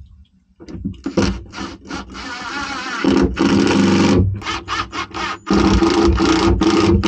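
Ryobi cordless drill driving screws into a plastic switch mount: a few short trigger pulses, then longer runs of motor whine with the pitch shifting as the screws bite and tighten.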